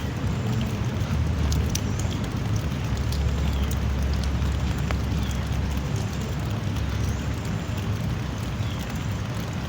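Drizzling rain falling steadily, a soft even hiss with scattered sharp ticks of individual drops, over a steady low rumble.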